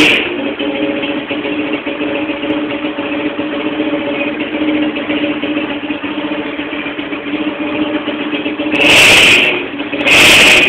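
Engine running through a modified exhaust fitted with an estralador (pop-and-crackle device): a loud blip as it catches, a steady idle, then two loud revs near the end.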